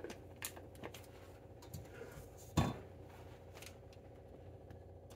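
Silicone spatula scraping thick batter into a piping bag set in a drinking glass: a few soft taps and clinks against the glass, with one louder knock about two and a half seconds in.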